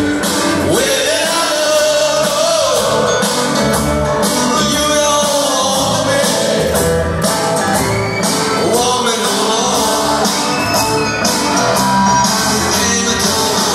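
A live rock band playing: electric guitars, bass and a drum kit keeping a steady beat, with a male voice singing over the top. Recorded loud from within the audience in a large hall.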